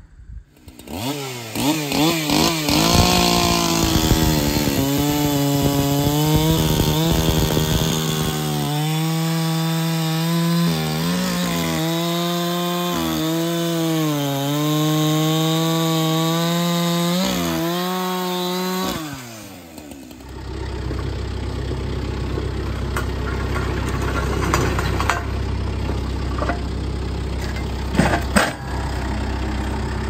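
Gas chainsaw running at high revs as it cuts into a cedar log, its pitch sagging and recovering under load, then winding down and stopping about 19 seconds in. After that, a Kubota tractor's diesel engine runs steadily.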